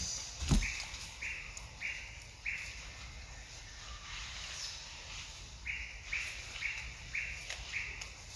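A bird calling: series of short, evenly spaced notes at about two a second, four near the start and five more near the end. A low thump about half a second in.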